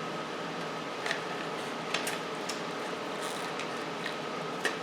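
A few small, sharp clicks and rustles of motorcycle wiring-harness connectors and wires being handled and pulled apart, over a steady hum with a faint high tone.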